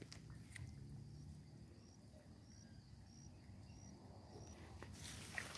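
Quiet forest ambience: a small animal's high, short chirp repeated about six times at an even pace, over a faint low rumble.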